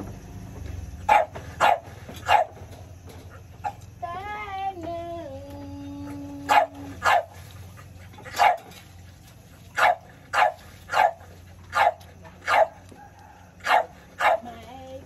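A dog barking repeatedly: about a dozen sharp, loud barks, often two in quick succession, with pauses of a second or more between groups. About four seconds in, a drawn-out call steps down in pitch.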